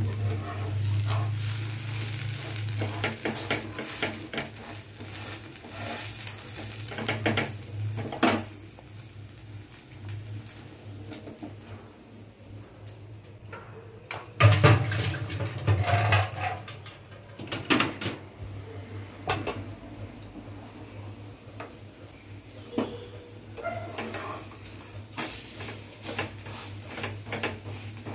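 Metal kitchen utensils and cookware clinking and knocking against a frying pan and each other, irregularly, over a low steady hum, loudest about halfway through.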